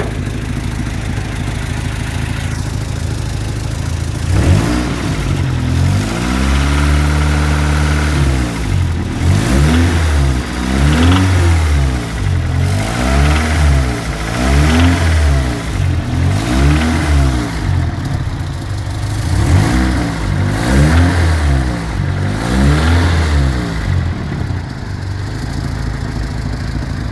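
A GSR's engine idling, then revved up and down about ten times in quick blips, each rising and falling over a second or two, before settling back to idle near the end. The owner is showing a noise from the engine that he has not identified.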